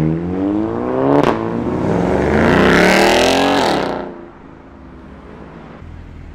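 A car accelerating hard, its engine note rising, broken by a sharp crack about a second in, then climbing again to its loudest before dropping away quickly about four seconds in.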